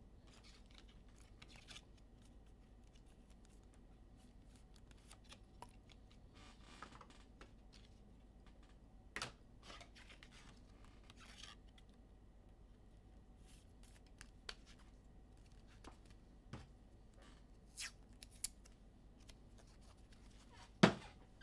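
Faint, scattered rustles and clicks of trading cards and their packaging being handled, with one sharper click near the end.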